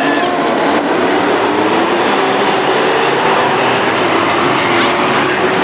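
Engines of a pack of Sportsman-class stock cars racing around the oval, several engines overlapping in a loud, steady drone whose pitches slide up and down as the cars lift and accelerate.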